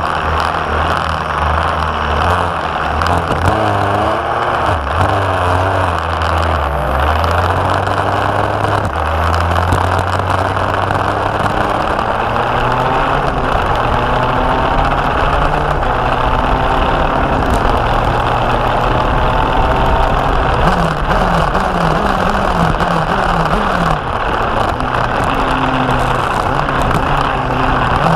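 Racing go-kart engine running at speed around a track, its pitch rising in a long climb through the middle as it accelerates and shifting up and down elsewhere, under heavy wind rush on the onboard microphone.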